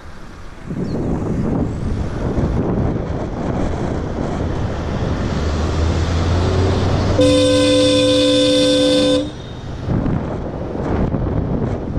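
A bicycle-mounted Hella Supertone dual-tone car horn sounds one steady blast of about two seconds, about seven seconds in, a warning at a car passing the rider too closely. Wind and tyre noise on the helmet camera's microphone run underneath.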